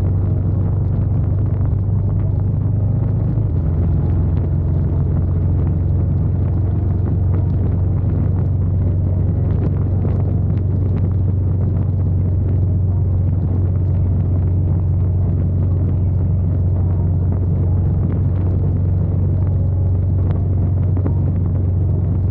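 Motorcycle engine running steadily at highway cruising speed, a deep constant drone mixed with wind and road noise. The engine note shifts slightly about three and a half seconds in.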